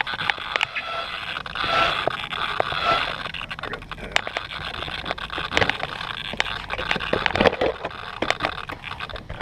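Handling noise from the camera and its mount: irregular clicks, knocks and scrapes as it is moved about.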